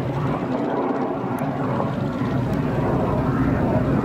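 North American F-86 Sabre jet in flight, its turbojet engine a steady rush of noise, deepest and strongest in the low range.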